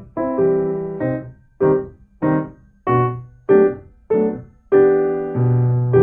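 Background piano music: chords struck at an even pace, about one every two-thirds of a second, each ringing and fading before the next.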